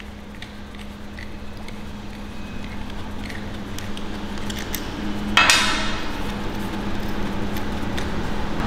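Small metal TIG torch parts being handled and unscrewed, with faint clicks and one sharp metallic clink about five and a half seconds in, over a steady low hum.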